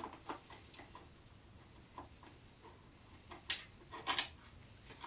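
Hand tool working out the small mounting screws of a motorcycle ignition switch: light metal clicks and ticks, with a few louder metallic clinks about three and a half and four seconds in.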